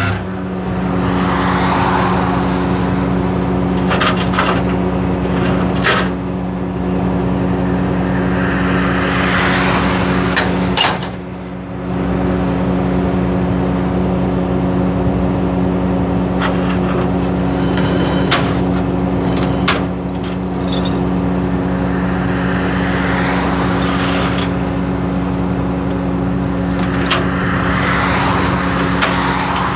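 Flatbed tow truck's engine idling with a steady hum, while highway traffic hisses past in swells every several seconds.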